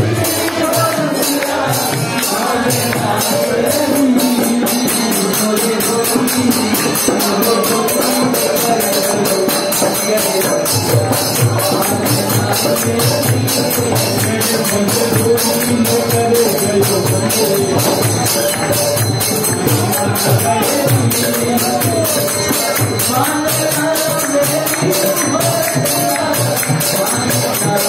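Devotional music with a sung melody over a fast, steady jingling percussion beat.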